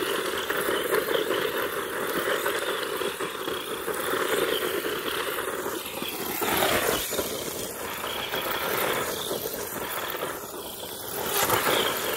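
Electric motor of a small RC desert truck whining under throttle while its tyres spin and scrabble in loose dirt, doing donuts. The whine and the spray of dirt rise and fall with the throttle, with a dip about six seconds in.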